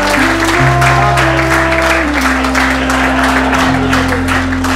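Background music of held chords and bass notes that change every second or two.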